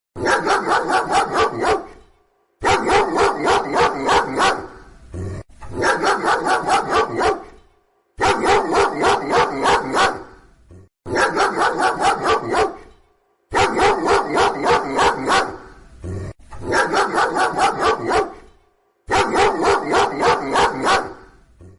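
A dog barking in quick volleys of about eight barks each, roughly four barks a second. The same volley repeats eight times with short pauses between, as a looped sound effect.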